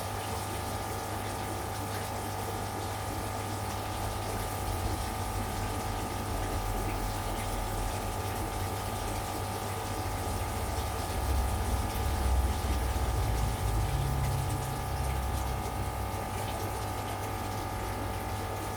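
Aquarium pump running: a steady hum with water noise. A louder low rumble swells for a few seconds past the middle.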